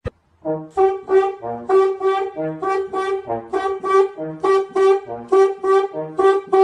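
Brass music with a bouncy rhythm of short repeated notes, a middle note alternating with lower ones, starting about half a second in after a brief click.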